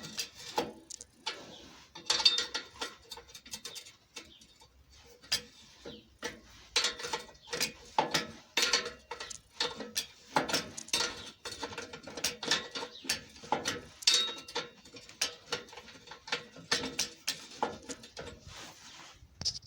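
Ratchet spanner clicking in short, irregular runs as exhaust bolts are tightened, with the odd clink of metal tools.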